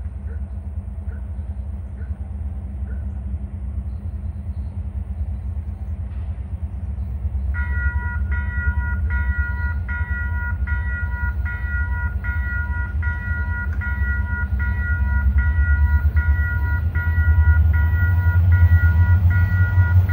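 Freight train's diesel locomotives approaching, a deep rumble that grows steadily louder. From about a third of the way in a bell rings steadily, about three strokes every two seconds, and stops near the end.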